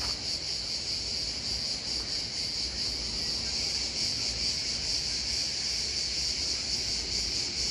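Crickets chirping in a dense, steady, high-pitched chorus on a summer evening.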